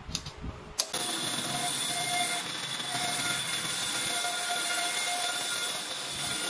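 A few light knocks of the wooden slab being handled. Then, about a second in, a band saw cutting lengthwise through the live-edge slab: a steady loud hiss with a whine that comes and goes.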